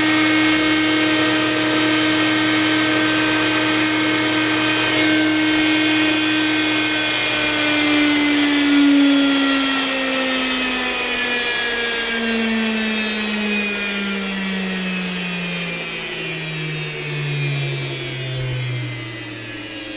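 Old washing-machine brushed motor running with a steady whine, then from about a third of the way in its pitch slides steadily down as the motor slows, ending in a much lower hum.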